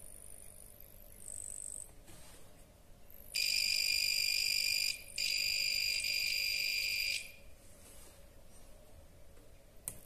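Piezo buzzer of a homemade non-contact AC voltage detector sounding a steady high-pitched tone for about four seconds, with a short break midway, as its pickup coil is held to a live soldering iron's cord: the sign that AC voltage is detected.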